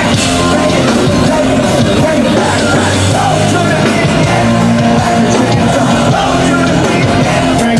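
A rock band playing live, loud and dense, with shouted singing over the band, heard from within the audience.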